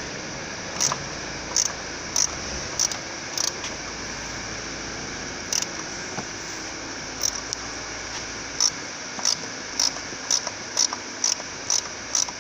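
Ratchet wrench clicking in short strokes, about one every half second, with a pause midway and quicker strokes near the end, as a suspension arm bolt is undone. A steady hiss lies behind it.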